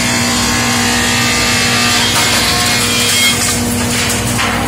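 LogRipper-200 one-pass multi-rip sawmill running while a cedar stem is fed through and ripped into half-inch boards. The machine's steady running hum carries the hiss of the cut, which grows louder about two seconds in, and a few short knocks come near the end.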